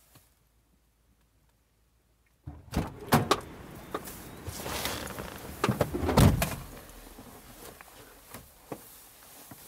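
A car's front passenger door is opened with a sharp click of the latch about two and a half seconds in, someone gets into the seat, and the door is shut with a heavy thud a little after six seconds.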